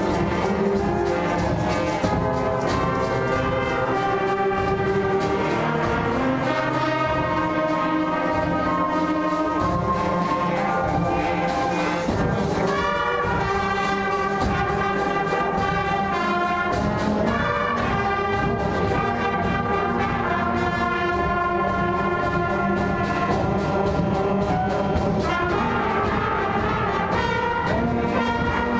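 Seventh-grade school concert band playing a piece together: brass and woodwinds with percussion, at a steady, full level.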